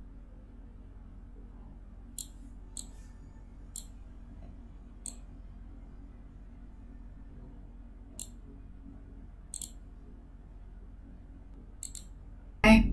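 Computer mouse buttons clicking now and then, about nine clicks at irregular intervals, a few as quick double-clicks, over a low steady hum. A brief louder sound comes near the end.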